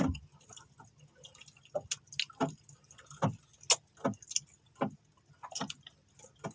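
Irregular sharp clicks and knocks, about a dozen, some with a brief ringing tail, over a faint low hum.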